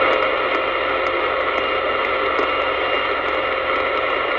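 CB radio receiver on lower sideband giving out a steady loud hiss of band static, with a faint steady whistle running through it: an open 27 MHz channel with no signal yet coming through.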